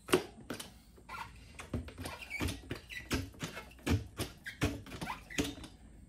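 Bead breaker of a Rabaconda Street tire changer being pushed down onto a motorcycle rear tire to break the bead off the rim: a run of sharp clunks and knocks, about two a second, mixed with short squeaks.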